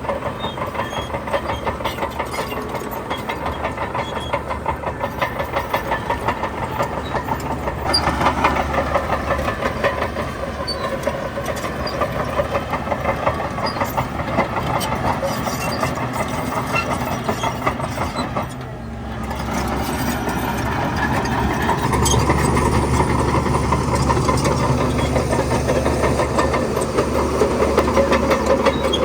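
Heavy diesel engine of a Shantui crawler bulldozer working under load, with a steady clattering rhythm. It grows louder about a quarter of the way in, drops away for a moment about two-thirds through, then comes back louder.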